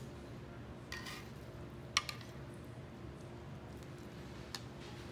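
Metal salad servers tossing wet cubed raw fish in a wooden bowl, clicking against the bowl three times, the sharpest about two seconds in, over a faint steady hum.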